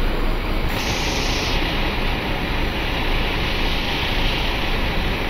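Large coach bus idling with a steady, even running noise; a higher hiss comes in about a second in and holds.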